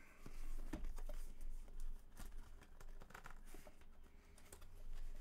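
Cardboard product box being handled and opened by hand: scattered light taps, scrapes and rustles over a steady low hum.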